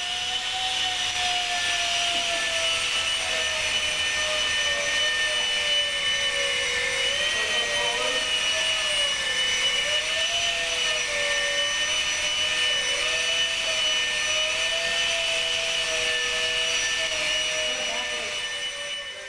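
Electric ducted fans of a small VTOL flying-wing drone running at hover power: a steady jet-like whine whose pitch wavers up and down.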